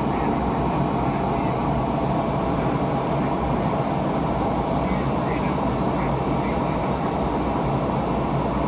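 Steady airflow and engine noise inside the cabin of a McDonnell Douglas MD-88 airliner in flight: an even rushing at a constant level with a faint steady hum.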